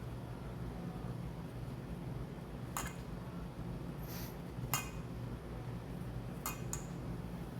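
A few light clinks of kitchen utensils against dishes: one near three seconds, one just before five, and a quick pair near the end, with a short scrape or hiss between them. A steady low hum runs underneath.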